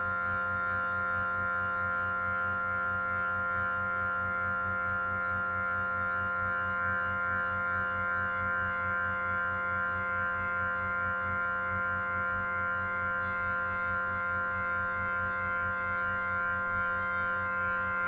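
Synthesized imitation of an SD-10 siren, built from generated tones in Audacity, held at a steady full-speed wail: several stacked steady tones with a fast, even flutter running through them.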